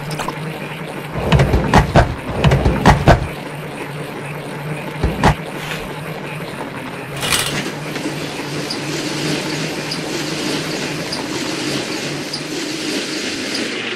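A run of loud knocks and clatters, then a roller shutter being lowered: a steady rumble with a light click repeating under a second apart as the slats roll down.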